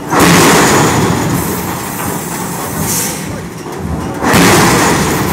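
Heavy forge-shop machinery, giving two loud crashes about four seconds apart. Each starts suddenly and dies away over about a second.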